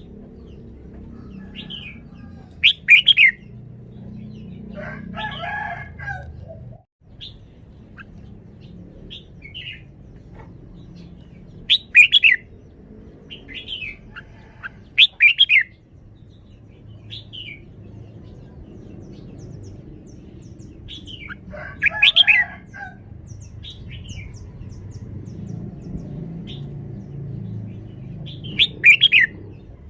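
Red-whiskered bulbul singing: short, loud, sweeping whistled phrases every few seconds, with softer chirps between them.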